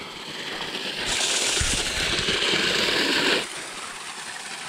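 Spring water gushing and splashing out of a pipe outlet, growing louder for about two seconds in the middle before falling back to a softer rush.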